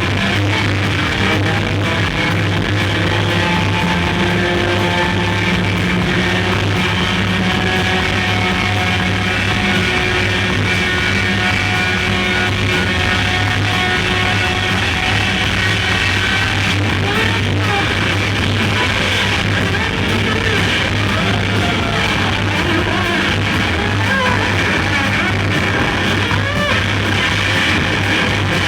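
A rock band playing loudly live: a dense, sustained wall of distorted electric guitar noise over a steady bass drone, with no break.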